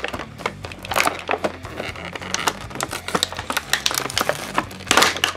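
Clear plastic packaging crinkling and crackling in irregular bursts as it is handled and peeled away from a die-cast toy truck trailer, with the loudest burst about five seconds in. Background music plays quietly underneath.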